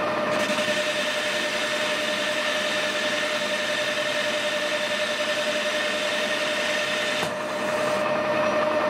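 Metal lathe turning a steel bar while a carbide tool takes a cut: a steady hiss of cutting over a held tone from the running lathe. About seven seconds in the cutting hiss drops away and the lathe runs on.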